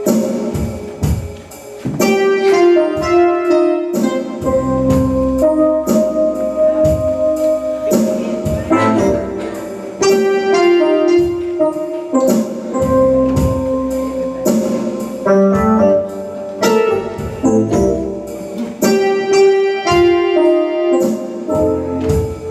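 Live church music: piano and organ playing over a steady beat.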